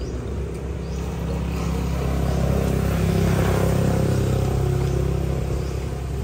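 A motor vehicle passing on the road: a low engine hum and tyre noise that swell to a peak about halfway through, then fade.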